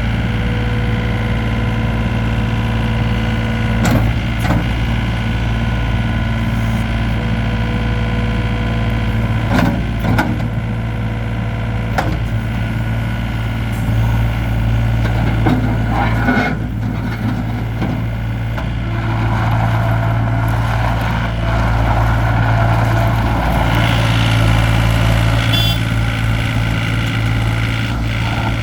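Gehl R105 skid steer loader's engine running steadily, with a few sharp clunks. The machine gets louder and busier for several seconds in the last third.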